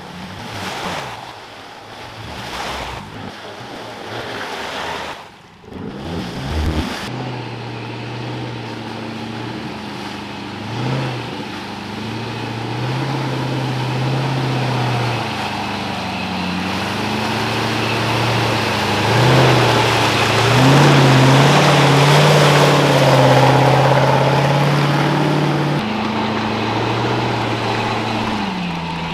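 Land Rover Discovery 1's Rover V8 engine revving up and down as it drives through deep mud and water, with the tyres churning and splashing. It is loudest past the middle.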